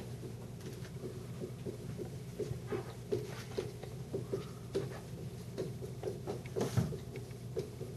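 Faint, quick, irregular taps and light scrapes, a few a second, from digits being written rapidly on a board, over a steady low room hum.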